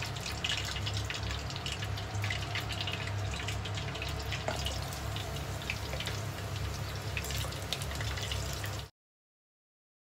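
Hot oil sizzling and crackling in a small tempura deep-fry pot as battered shrimp fry, over a steady low hum. The sound cuts off abruptly about nine seconds in.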